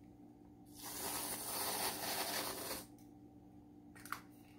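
Aerosol can of whipped cream spraying: a steady hiss for about two seconds, starting about a second in. A light click follows near the end.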